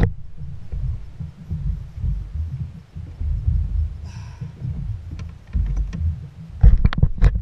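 Wind buffeting the action camera's microphone: a loud, uneven low rumble throughout. A few sharp knocks come near the end.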